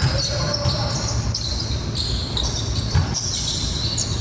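Indoor basketball game: a ball dribbling and sneakers squeaking on the court, many short high squeaks over a steady low rumble, echoing in a large hall.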